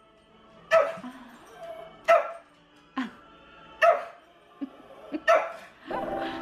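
Shih tzu barking at the television in sharp single barks, about five of them, a second or so apart, over Christmas music playing from the TV.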